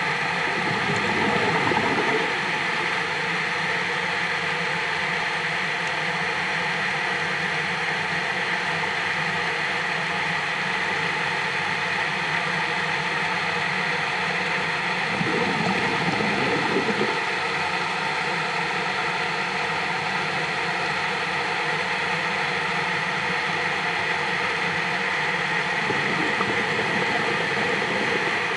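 Steady mechanical hum with a high hiss, carried through the water. A louder low rushing swells up three times, each for a second or two: near the start, around the middle and near the end.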